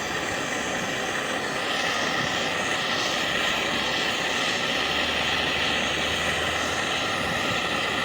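Gas brazing torch burning steadily with a loud hiss as it heats a copper refrigerant pipe joint, growing louder and brighter about two seconds in.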